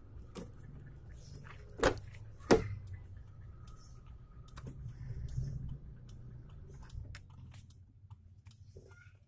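Toyota Kijang engine idling as a low steady rumble, which fades out about seven seconds in. Two sharp knocks come a little under two seconds in and again about half a second later, and light clicks and rattles run throughout.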